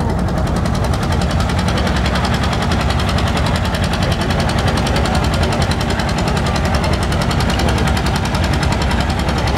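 Two-cylinder John Deere tractor engine working hard under load as it drags a weight-transfer pulling sled, its exhaust coming in a rapid, even beat at a steady, loud level.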